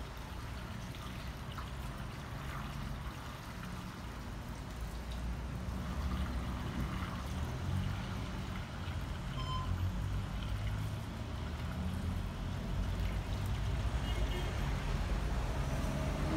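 Diluted active-foam solution pouring from a bucket through a funnel into a foamer tank: a steady pour with a low rumble underneath that grows louder toward the end.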